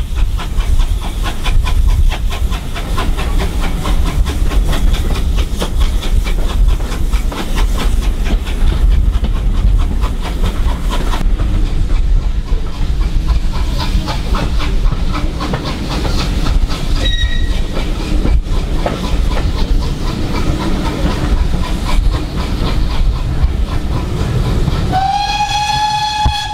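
Steam-hauled heritage passenger train running along the track: a steady rumble with fast, even clatter from the wheels on the rails. There is a brief high tone about two-thirds of the way through. Near the end, a steam locomotive whistle starts and is held.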